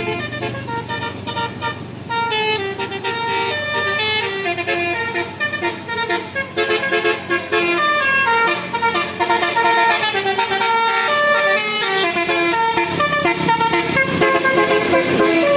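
Bus telolet horn, a bank of air-horn trumpets, playing a quick tune of stepped notes that jump up and down in pitch without a break.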